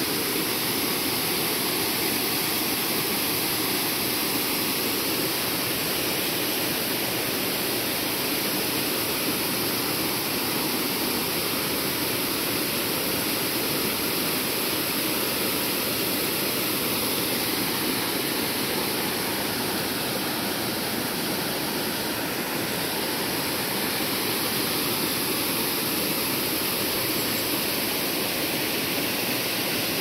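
Waterfall rushing steadily: an even hiss of falling water that does not change.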